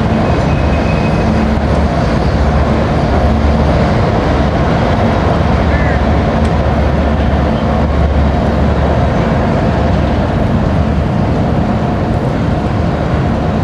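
Diesel locomotives and a freight train crossing a steel truss bridge: a loud, steady rumble with a low engine drone.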